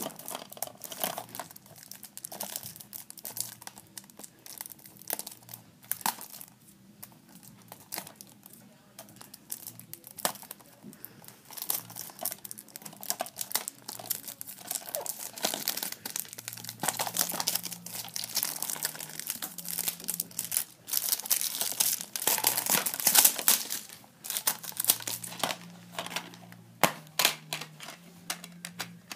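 Plastic shrink wrap being torn and crinkled off a plastic DVD case, with irregular crackling that is densest and loudest about two-thirds of the way through. Sharp clicks near the end as the case is handled and opened.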